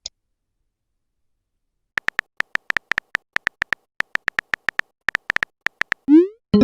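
Smartphone keyboard typing sound effect: rapid, irregular short clicks for about four seconds, followed near the end by a short rising swoop like a message-sent tone.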